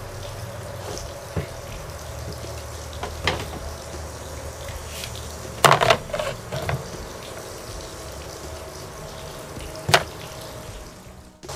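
Scattered sharp clacks and knocks of a screwdriver and plastic cover being handled on a Johnson/Evinrude outboard's powerhead as the cover over the optical sensor comes off. The two loudest are about halfway and near the end, over a steady hiss.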